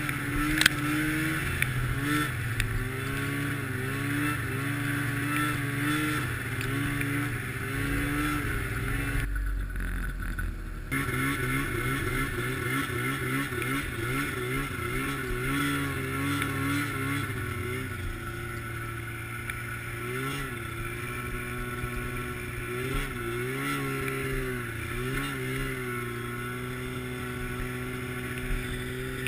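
Arctic Cat snowmobile engine running under way on a trail, its pitch rising and falling as the throttle changes. The sound drops away briefly about ten seconds in.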